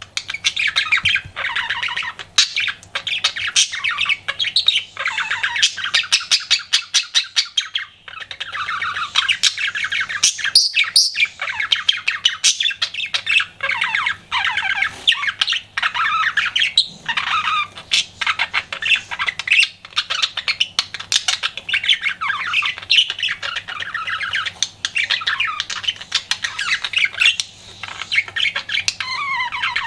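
Pet budgerigar warbling: a fast, continuous chatter of chirps, clicks and squawky notes, broken by brief pauses.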